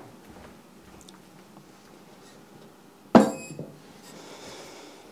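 A single hard clunk with a brief ringing tail about three seconds in: the clay bean pot being set down on the wood stove's top. A faint hiss follows.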